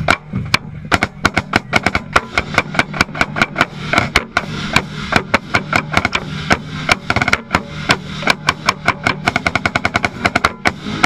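Marching snare drum played close up: a fast, dense run of sharp strokes in quick clusters, over the marching band's sustained lower notes.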